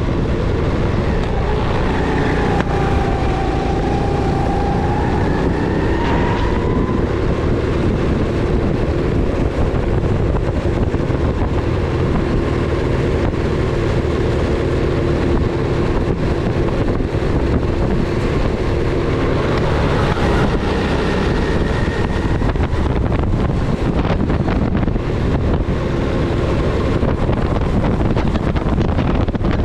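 Rental go-kart engine running hard on track, its note dropping and climbing again as the revs fall and pick back up, with wind buffeting the microphone throughout.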